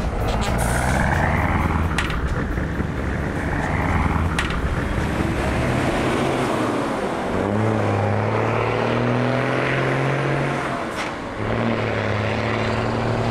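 Engine of a converted Blue Bird school bus, a Guatemalan 'chicken bus', driving under load. Its pitch rises several times as it accelerates, and it dips briefly about eleven seconds in, with a few sharp clicks along the way.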